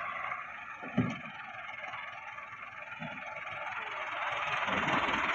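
A Massey Ferguson tractor's diesel engine runs as it pulls a brick-loaded trolley, growing louder near the end. There is a single thump about a second in.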